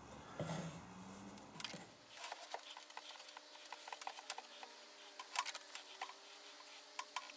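Faint, scattered light clicks and taps, irregular and a few to the second, over a low background hum.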